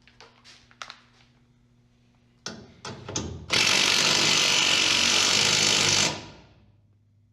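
A power tool, triggered briefly a couple of times and then run in one steady burst of about two and a half seconds before it winds down, after a few light clicks.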